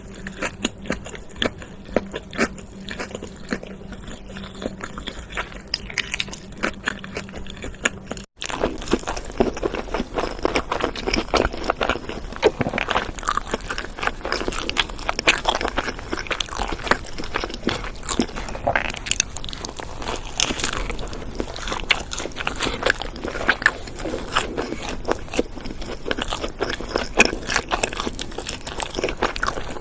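Close-up chewing and crunching of fast food, with many crisp bites and wet mouth clicks. About eight seconds in there is an abrupt cut: a low hum drops out and the crunching becomes denser and louder.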